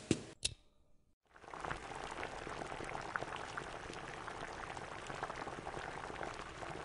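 Two quick knocks, then after about a second of silence a pot boiling on the stove, a steady bubbling crackle.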